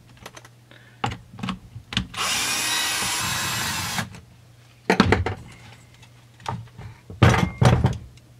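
Cordless drill-driver running for about two seconds, backing out one of the 4 mm Allen screws that hold the chainsaw's starter cover. Light clicks of handling come before it, and louder plastic knocks and clatter follow near the end as the starter cover comes off the saw.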